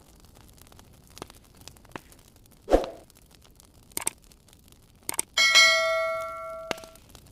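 Wood fire crackling with scattered small pops, a loud dull thump about three seconds in, and a metallic clang a couple of seconds later that rings on with several tones and fades over about a second and a half.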